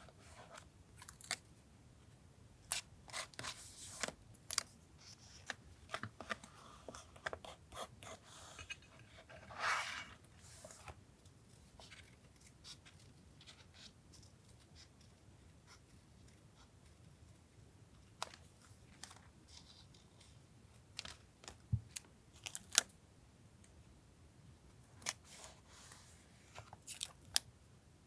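Scissors snipping paper and paper being handled during collage journaling: scattered crisp snips and clicks, a longer paper rustle about ten seconds in, and a quiet pause midway. A faint steady low hum runs underneath.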